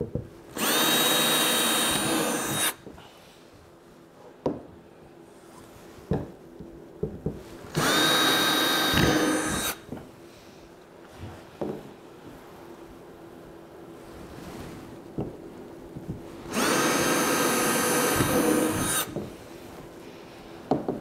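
Cordless drill boring 1/8-inch holes through plastic Hyfax runners into a plastic sled hull: three runs of about two seconds each, the motor's whine rising as it spins up and then holding steady. Light knocks of handling fall between the runs.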